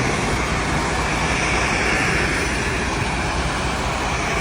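A steady, even rushing noise with no distinct tones or rhythm.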